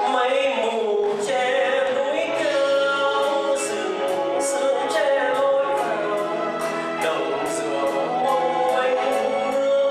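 A male vocalist singing a Vietnamese bolero ballad with a live band, with light percussion taps keeping the beat.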